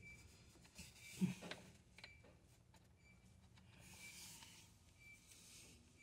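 Faint rubbing and a few light clicks of plastic drain clips being pushed onto a refrigerator's evaporator coil, with a soft thump about a second in.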